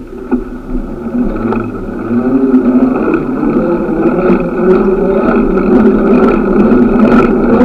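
Traffic and road noise on a moving bicycle: a steady hum with scattered ticks and rattles, getting louder about two seconds in.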